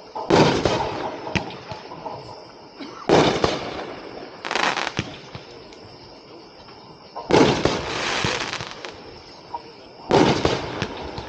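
Raccoon Fireworks Scarlet Blitz, a 16-shot molded RDX firework cake, firing its shots one at a time. There are about five sudden bangs, one to three seconds apart, each trailing off over about a second, the one about two-thirds of the way through lasting longest.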